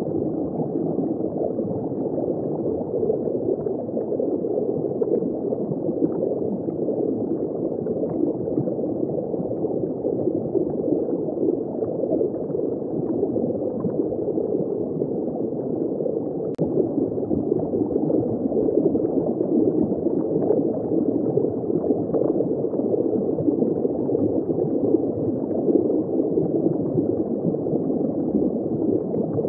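Water circulating and gurgling in a saltwater reef aquarium, heard from inside the tank as a steady, muffled rushing with no high end.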